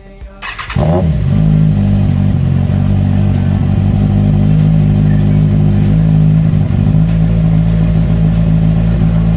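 Kawasaki Z1000 inline-four engine cranking briefly and catching about a second in, then idling steadily through a newly fitted aftermarket exhaust canister.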